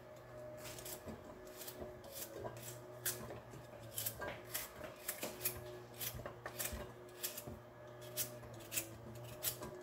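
Kitchen knife cutting a raw carrot held in the hand, a run of short crisp snaps about two a second as pieces are sliced off into the pot.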